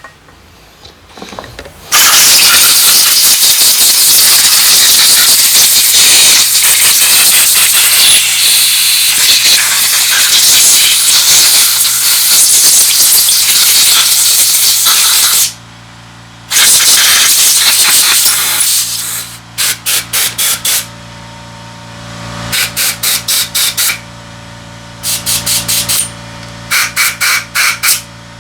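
A pressurised spray hisses on carburetor parts being cleaned. It starts about two seconds in with one long blast of roughly thirteen seconds, then a shorter blast, then runs of short quick bursts. A steady low hum sits under the later bursts.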